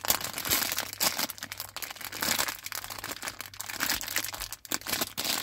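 Small clear plastic parts bag crinkling and rustling in the fingers as it is pulled and twisted to get it open, in an uneven run of crackles.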